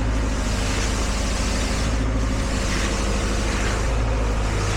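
Diesel engine of a ready-mix concrete truck running steadily during the pour, a constant low hum.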